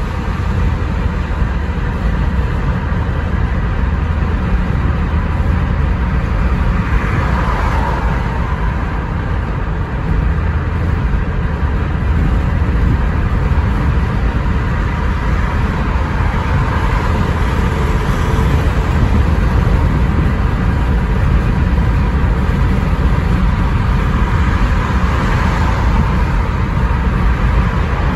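Road noise inside a moving car at highway speed: a steady low rumble of tyres and engine that swells a little a few times.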